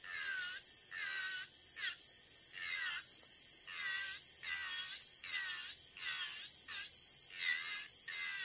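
Electric nail drill with a barrel bit grinding the gel base coat off a fingernail with light pressure, in short repeated strokes about every half second. Its whine dips and recovers in pitch with each stroke.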